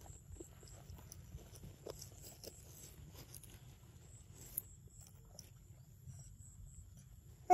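Quiet outdoor background: a low steady rumble with scattered faint soft ticks and a faint, high-pitched, evenly pulsing tone.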